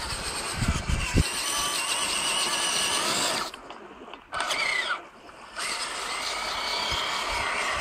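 Traxxas Summit RC truck's electric brushless motor (a 1580 Kv Neu 1717) whining as the truck drives on sand, its pitch rising and falling with the throttle. The whine drops off twice briefly around the middle.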